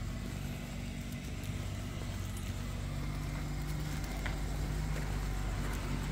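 Steady low hum of a motor vehicle engine running nearby, over light street traffic noise.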